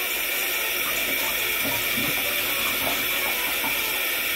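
Kitchen tap running steadily into a stainless steel sink, the stream splashing over a raw corned beef silverside as it is rinsed by hand.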